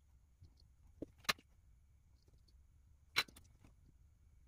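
A few sharp clicks and taps of small hand tools being handled on a drone's flight controller during soldering: two close together about a second in, then a louder one about three seconds in with a few lighter ticks after it.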